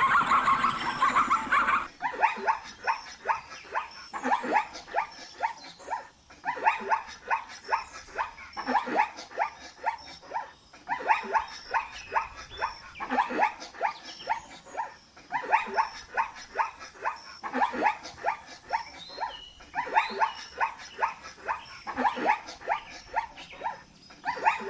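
A savanna animal barking repeatedly, about two short barks a second in bouts of a few seconds with brief pauses between them. In the first two seconds a different, steadier animal call is heard, and it cuts off abruptly.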